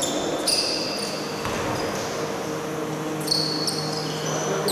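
Basketball shoes squeaking on a hardwood court in a large echoing sports hall: a few short, high squeaks over a steady low hum.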